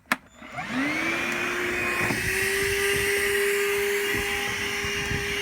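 DeWalt DCV582 cordless wet and dry vacuum switched on with a click, its motor spinning up in a rising whine within about a second, then running steadily with a high whine over the rush of sucked air.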